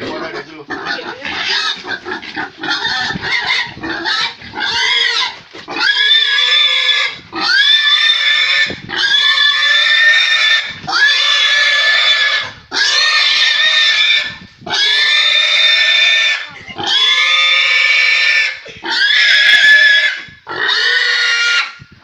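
Pig squealing as it is held down by hand: short, broken squeals at first, then from about six seconds in a run of about nine long, loud squeals, each a second or two, with brief pauses for breath between.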